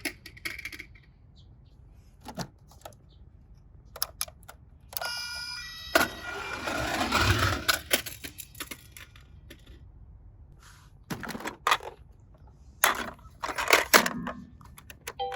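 Toy minicars clicking and clattering against a plastic slide and one another, with a rushing roll from about six to eight seconds and a cluster of knocks near the end. A short run of stepped electronic tones sounds about five seconds in.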